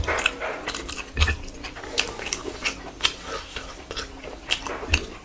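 A person eating rice and curry: chewing with irregular clicking mouth sounds and a couple of soft low thumps.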